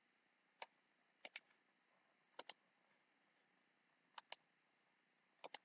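Quiet computer mouse button clicks, a single click followed by four quick double clicks spread across the few seconds, as pixels are clicked on and off.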